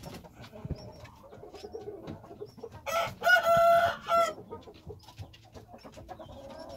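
Rooster crowing once, a short loud crow of about a second and a half that starts about three seconds in and breaks off into a brief final note. Softer clucking comes before and after it.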